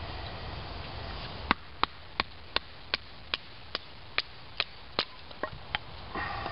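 Wooden baton knocking on the spine of a knife to split a stick of cedar: about a dozen sharp, evenly spaced knocks, a little over two a second, then a short scraping sound near the end.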